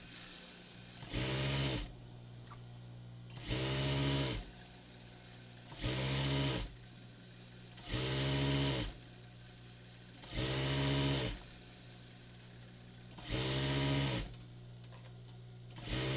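Electric sewing machine stitching a shirt cuff in seven short bursts, each under a second and roughly every two and a half seconds. The motor speeds up and slows down each time, and a steady low hum runs between the bursts.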